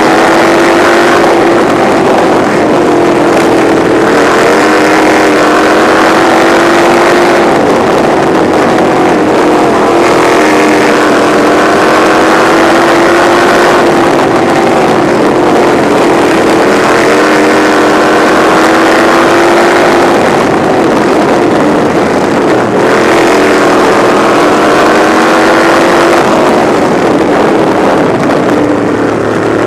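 Lightning sprint car engine heard loud from the cockpit, running hard under racing load, its pitch climbing along the straights and dropping back into the turns, repeating every several seconds as the car laps the oval.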